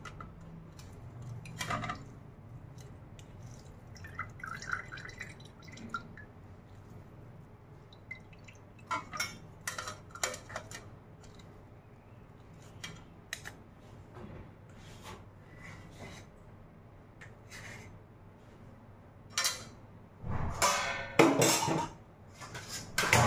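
Steel spoon scraping and tapping against a metal mesh strainer over a steel container while homemade ghee is strained off its browned milk solids: scattered clicks and clinks, with a louder run of metal clattering near the end.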